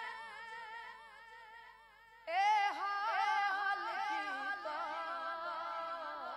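A man's voice singing a Punjabi naat unaccompanied, in a wavering, ornamented style. A long held note fades out about two seconds in, then a louder new phrase starts with quick melodic runs.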